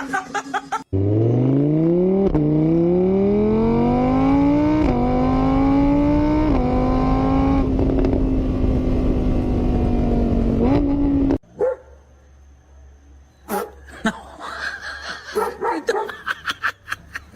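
Car engine accelerating hard through the gears: its pitch climbs and drops back at each of three shifts, then holds steady before cutting off abruptly about eleven seconds in. A scatter of short, sharp sounds follows.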